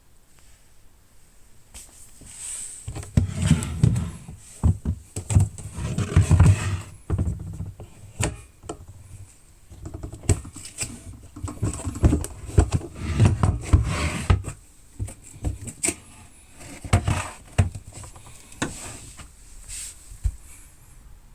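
Hard plastic protective tool case being handled: irregular clicks, knocks and rustling, with a few sharper snaps.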